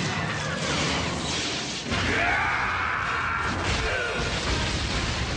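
Animated fight sound effects: dense crashing and smashing noise. About two seconds in it gets louder, and a high wavering, gliding tone runs over it for a couple of seconds.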